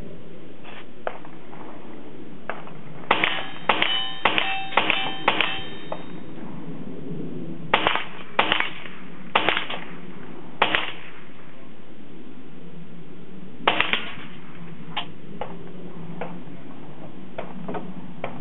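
Ruger 10/22 .22 LR semi-automatic rifle firing: a quick string of five shots about half a second apart with steel targets ringing, then five more shots at irregular intervals over the next several seconds. Fainter pops follow near the end.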